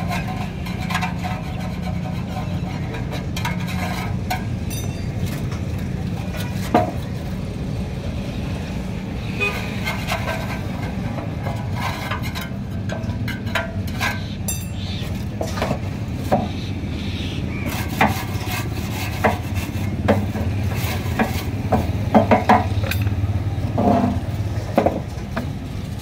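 Hand-held gas torch burning steadily as it heats a copper radiator's tank for soldering, a constant low rush, with scattered light metallic clicks and taps that come more often in the second half.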